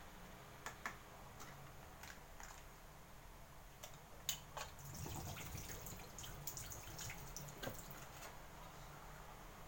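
Humidifier running: faint water drips and light clicks over a low steady hum, with a cluster of ticks in the second half.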